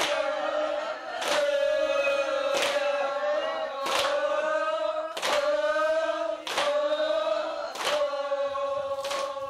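A group of voices chanting together in unison on one long held pitch, with a sharp stroke-like accent about every 1.3 seconds keeping a steady rowing rhythm.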